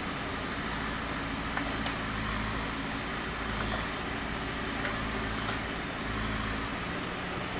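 Diesel engine of a Terex TLB 740S backhoe loader running steadily while it works, its low note firming up about a second in and easing near the end, with a few faint clicks.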